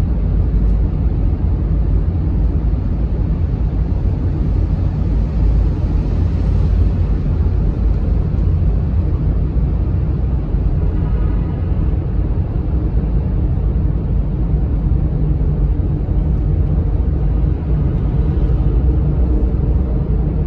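Steady road and engine rumble heard from inside a moving car's cabin, driving through a road tunnel.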